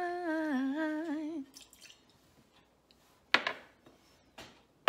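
A woman sings the word "tonight" as a held, wavering note for about a second and a half. After a pause come sharp clinks of cocktail-making gear on the kitchen counter (bottle, metal shaker and jigger): a loud one about three seconds in, a fainter one, and another at the end.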